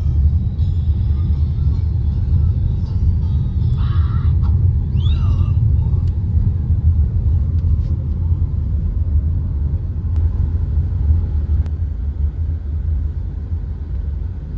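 Steady low rumble of a moving vehicle heard from inside it, with a few faint brief higher sounds in the middle.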